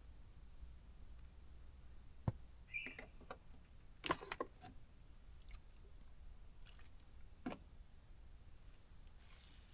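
Scattered light clicks and knocks of small objects being handled, the loudest cluster about four seconds in, with a brief squeak just before three seconds, over a faint low hum.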